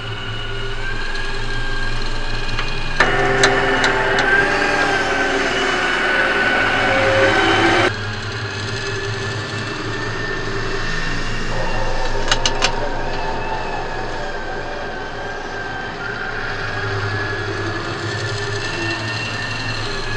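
HUINA radio-controlled toy excavator's small electric motors whining as the boom and bucket move. It gets louder from about three seconds in for some five seconds, with a few sharp clicks.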